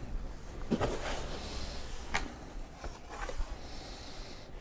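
Long cardboard rifle shipping box being opened by hand: the lid is lifted and the cardboard scrapes and rustles, with a few sharp taps and knocks.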